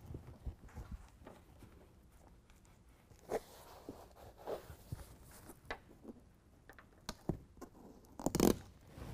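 Adhesive backing being peeled off the hook-and-loop fastener strips under a carpeted truck bed mat, with scattered short peeling and crinkling sounds. About eight seconds in there is a louder, zipper-like rip.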